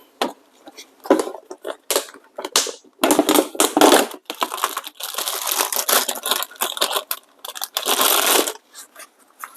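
Paper coffee filter being pulled out and handled, crinkling and rustling: a few short rustles, then a long stretch of dense crinkling that stops about a second before the end.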